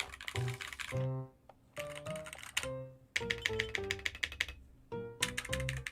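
Keys of a custom-built keyboard being typed in quick runs of clicks, with short pauses between the runs, over background music with a melody.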